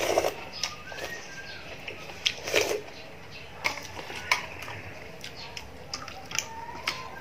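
Close-miked eating sounds: a slurp from a spoon at the start and another about two and a half seconds in, then chewing with many sharp clicks and lip smacks.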